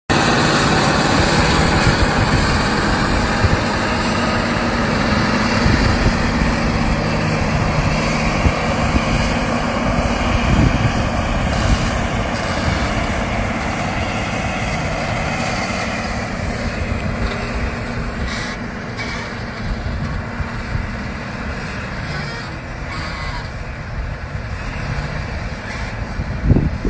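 John Deere 9470R four-wheel-drive tractor's diesel engine running under load as it pulls a loaded earthmoving scraper through soil: a steady heavy drone that slowly fades over the second half as the tractor moves away.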